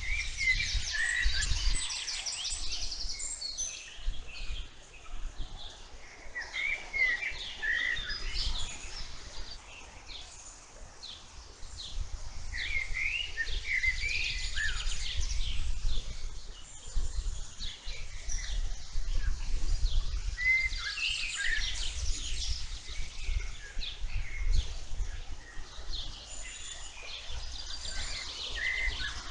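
Several wild birds singing and chirping together, short overlapping calls, trills and whistled phrases, with a low rumble underneath.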